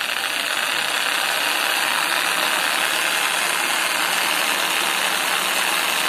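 Black+Decker corded jigsaw running steadily with no load, its electric motor and reciprocating blade stroking in free air after a T-shank blade has been fitted.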